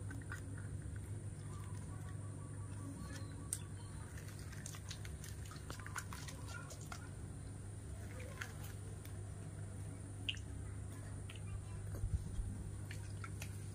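Baby monkey sucking at a milk bottle with small wet squishing and smacking sounds, then light scattered clicks and taps as it moves about, over a steady low hum.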